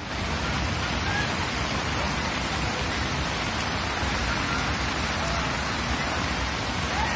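Heavy monsoon rain falling steadily on surfaces.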